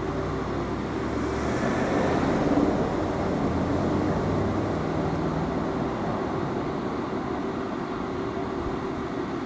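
Alstom Citadis Luas tram pulling away along the track: a steady low hum and rumble that swells about two seconds in, then slowly fades.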